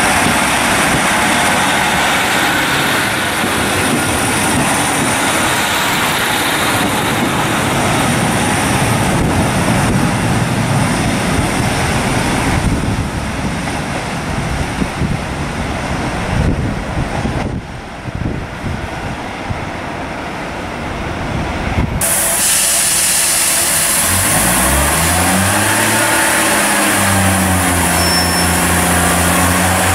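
Diesel multiple units at a station. First a Northern Rail Class 150 Sprinter's engines and wheels rumble as it runs past and pulls away, and the noise eases off as another train approaches in the distance. Then a Class 142 Pacer's diesel engine drones, rising in pitch and settling to a steady hum near the end.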